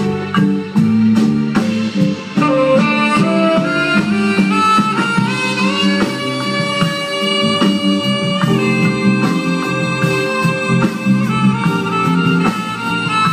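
Live jazz band playing, with long held melody notes stepping up and down over a steady accompaniment.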